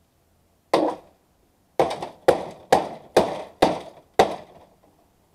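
Hammer blows on the metal parts of an air-conditioner unit being broken down for scrap. There is a single blow, then a run of six more at about two a second, each ringing briefly.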